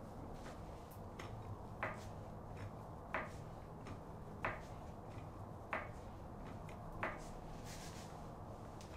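Daytona dual-piston 3-ton floor jack being pumped by its handle to lift a car, a sharp click on each stroke, five strokes about 1.3 seconds apart, over a steady low hum.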